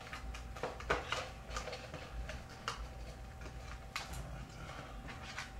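Small irregular clicks and taps of computer RAM modules being handled and pulled from their slots, over a faint steady hum with a thin high tone.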